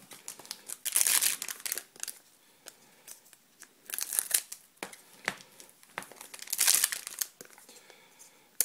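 Foil trading-card booster pack wrappers crinkling as they are handled, in three main bursts about a second in, around four seconds in and near seven seconds, with short clicks between. Scissors snip into a wrapper near the end.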